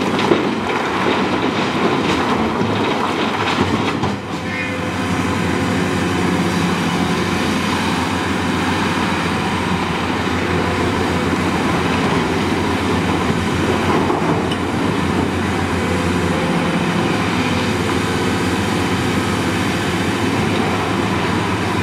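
Large hydraulic excavator running loud and steady under load, its diesel engine and hydraulics working as it swings and digs. A clatter of blasted granite dropping into a steel dump-truck bed comes right at the start.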